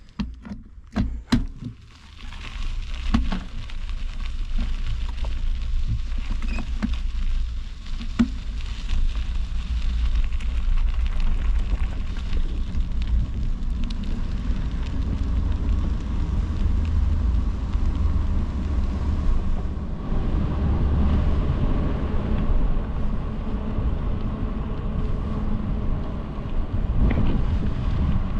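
A few knocks in the first two seconds, then a bicycle riding along: steady low wind rumble on the microphone and rolling tyre noise.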